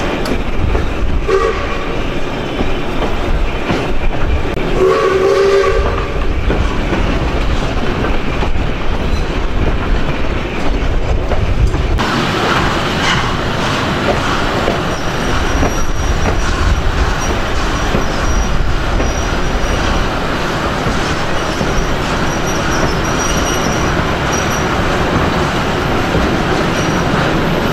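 Broad-gauge train hauled by ex-South Australian Railways steam locomotive 621 running along the line, a steady rumble and clickety-clack of wheels on the rails, with two short whistle blasts about one and five seconds in. The sound changes abruptly about twelve seconds in, and a faint high squeal comes and goes in the second half.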